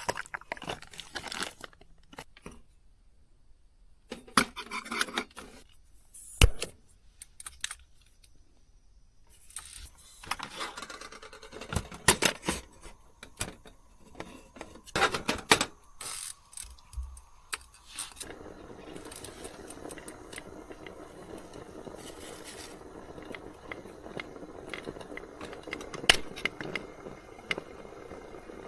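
Camp cooking prep: scattered clinks, knocks, scrapes and rustles of cooking gear and food packaging being handled. About two-thirds of the way through, a steady hiss sets in.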